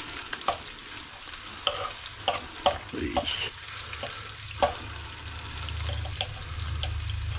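Bacon pieces sizzling in fat in a frying pan while a utensil pokes and scrapes at them to pull apart pieces stuck together, with several sharp clicks of the utensil against the pan.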